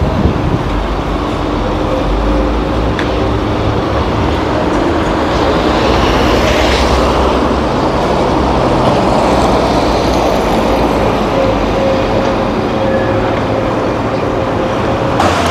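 Steady city street traffic: cars and a minibus driving past, with the hum of engines and tyre noise on the road. One vehicle swells louder about halfway through.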